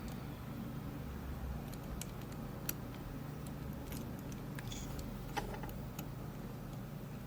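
Faint metallic clicks and light scrapes of a lock pick and turning tool working the pins inside a Rav Bariach LocX pin-in-pin euro cylinder, a few scattered ticks over several seconds, over a low steady hum.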